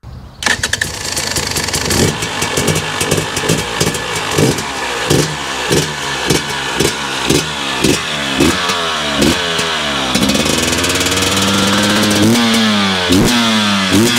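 A running engine, its pitch rising and falling in a regular cycle about three times every two seconds; a steadier tone joins about ten seconds in.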